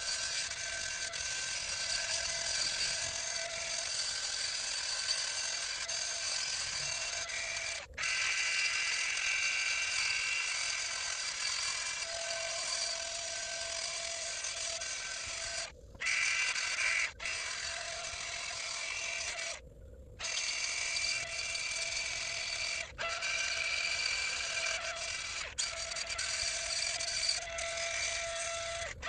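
Angle grinder running steadily with a high whine as it grinds the rough, chainsaw-marked bottom of a pin oak block smooth and flat. The sound cuts out for a moment several times, longest about twenty seconds in.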